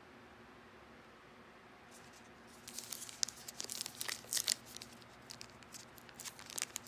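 A basketball card pack's foil wrapper being torn open and crinkled by hand: irregular crackles and rips starting about two and a half seconds in.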